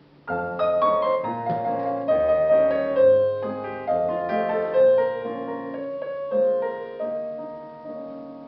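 Piano introduction to a song: chords and a melody over a bass line, beginning just after the start and growing quieter near the end.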